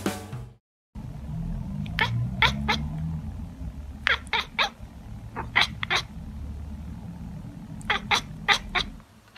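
Tabby cat chirping and chattering: short high chirps, each falling in pitch, in quick runs of three, three, two and then four.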